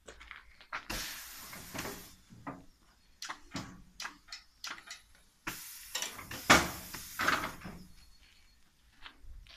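Urban AKS 1200 double-head PVC profile welding machine working its pneumatics: a run of clicks and clunks from the switches, clamps and heads moving, with two bursts of compressed-air hiss, one about a second in lasting about a second and a louder one about five and a half seconds in lasting about two seconds.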